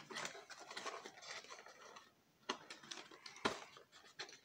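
Hands handling a small cardboard box and working at its flaps to open it: cardboard scraping and rustling, then a sharp tap about two and a half seconds in and a louder knock about a second later.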